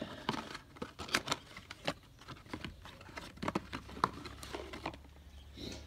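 Cardboard oil filter box being opened and the new filter taken out: scattered light clicks and rustles of handled cardboard.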